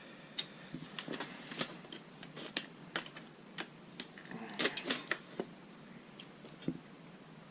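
Irregular small clicks and taps from hands working the parts of an original Xbox disc drive, with a quick run of clicks about two-thirds of the way through.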